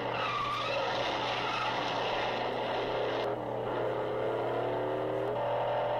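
Muscle car engines revving hard in a film car chase, the engine note climbing through the revs around the middle and stepping up again near the end. A steady low hum runs underneath, heard as playback through a TV.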